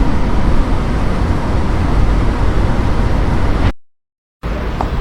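ElevenLabs AI-generated sound effect for an aerial night-city shot: a steady, dense rumble of noise, heavy in the bass, that cuts off abruptly a little under four seconds in. After a brief silence another generated clip starts near the end.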